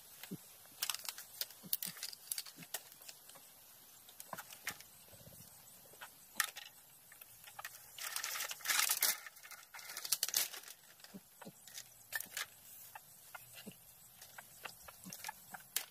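Irregular rustling and crackling with scattered sharp clicks, and a louder stretch of crunching rustle about eight seconds in.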